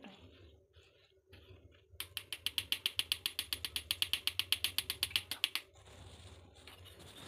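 A metal spoon rubbed rapidly against the mesh of a tea strainer, pushing an egg and milk custard mixture through it: a fast, even clicking rasp of about ten strokes a second, starting about two seconds in and lasting three to four seconds.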